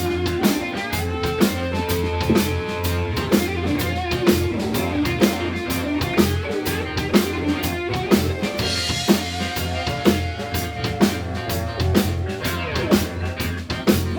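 A live funk band playing an instrumental groove: a drum kit keeps a steady beat under a bass line and electric guitar.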